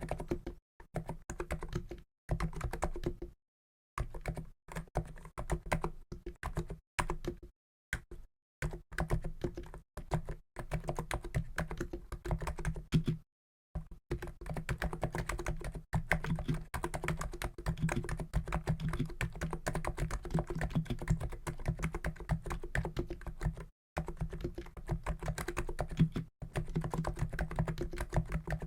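Typing on a COX Endeavour keyboard with 50 g Noppoo Niz electro-capacitive switches: fast runs of keystrokes with a deep, low-pitched sound, broken by short pauses, and one long unbroken run in the middle.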